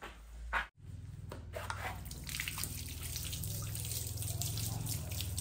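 Water running from a tap and splashing as hands are washed under it, with a steady low rumble beneath the splashing. It starts abruptly under a second in.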